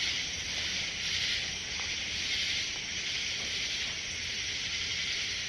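Steady night chorus of insects, a dense high hiss with no single call standing out.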